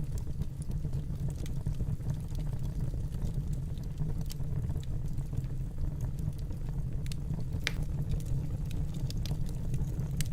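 Wood fire burning in a fireplace: a steady low rumble of flames with scattered crackles and pops, one sharper pop about three-quarters of the way through.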